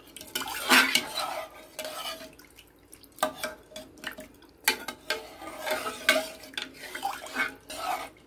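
A spatula stirring split moong dal in water inside a metal pressure cooker: repeated scrapes and knocks against the pot with swishing water, in irregular strokes.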